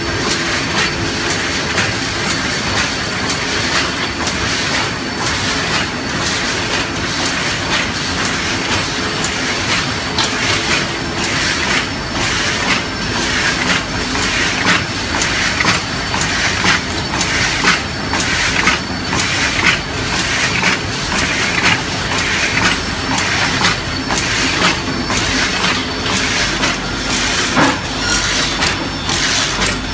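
Bobst SP 1080-E automatic platen die-cutting press running: a steady, loud machine clatter with a rapid, even clacking rhythm.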